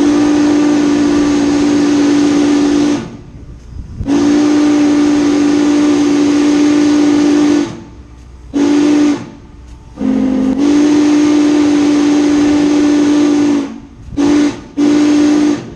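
Norfolk & Western 611 steam locomotive's whistle sounding the grade-crossing signal: two long blasts, a short one and a long one, then two quick short toots near the end. The pitch is steady, except that the last long blast opens a little lower for a moment before settling.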